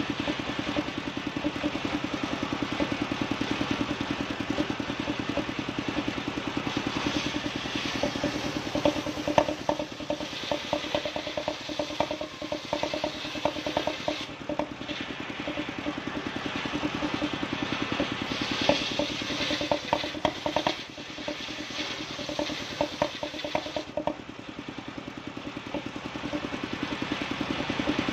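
Engine-driven table circular saw running steadily with a fast pulsing beat while its blade rips a bayur (wadang) log lengthwise into rafters, the cutting hiss and rattle of the wood riding over the engine. The cutting noise eases off about 24 seconds in as the cut finishes, leaving the saw running.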